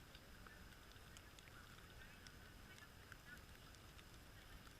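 Near silence, with a few faint, short bird calls scattered through it.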